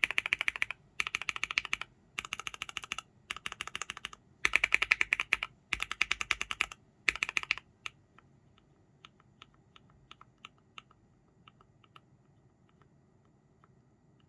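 Mechanical keyboard with Cherry MX Black and Gateron Irene linear switches being typed on fast, in seven short bursts of rapid keystrokes. After about seven and a half seconds the typing turns to slow, scattered single key presses that stop near the twelfth second.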